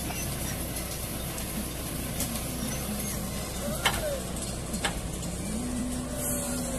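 Truck engine running steadily, its pitch rising about five and a half seconds in and holding there, with two sharp clicks about a second apart near the middle.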